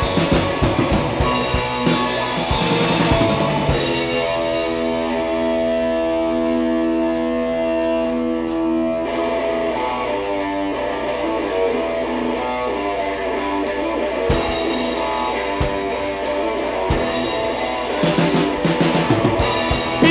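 Live rock band playing an instrumental break with electric guitar, bass guitar and drum kit, no singing. Long held notes ring through the middle with light cymbal ticks, and the full band comes back in near the end.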